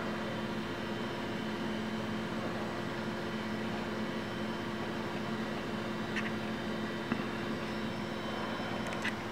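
Macintosh SE running: a steady drone from its cooling fan and internal drive, with a low, even hum underneath. A few faint clicks come in the second half.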